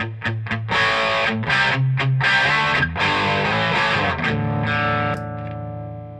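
Electric guitar played through the Victor Custom Dragon 10 tube amp's crunch channel, with an overdriven Plexi-style tone: quick muted chugs, then a few full chords, the last one ringing out and fading away.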